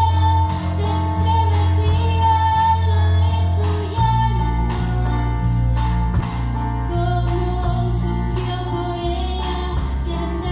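Girl soloist singing a slow melody with a youth choir, accompanied by electric guitar over a low held bass note that shifts about four seconds in.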